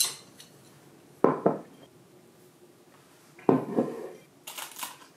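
Tableware knocking on a wooden table, with a glass beer mug set down: a sharp click at the start, two knocks about a second in, another loud knock about three and a half seconds in, then a short rustle near the end.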